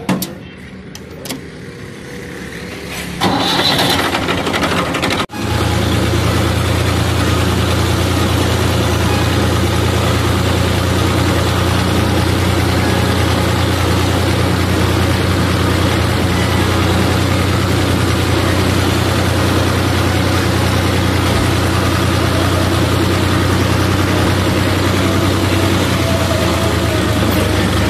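Diesel tractor engine started on the key: a few clicks, then the starter cranks for about two seconds and the engine catches a little over five seconds in. It then runs steadily as the tractor drives along.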